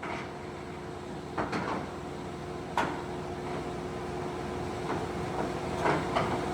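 American engine lathe's spindle and gearhead running steadily at about 500 RPM, with a steady hum. About half a dozen sharp clicks and knocks come in a pair at the start, around a second and a half in, near the three-second mark, and as a pair near the end.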